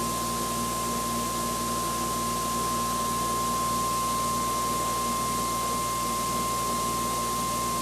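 RegenX generator prototype running on its prime mover under a resistive load: a steady whine over an even mechanical hiss.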